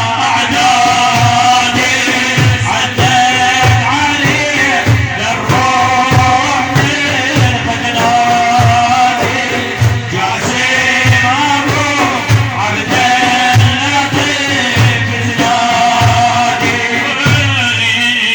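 Arabic madih (religious praise song): a singing voice holding long, wavering melodic phrases over a steady drum beat.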